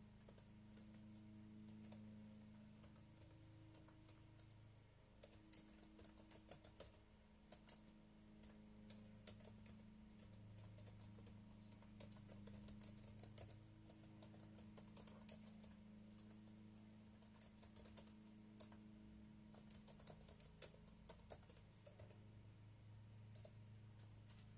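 Faint typing on a computer keyboard: irregular runs of keystrokes, busiest after the first few seconds, over a low steady hum.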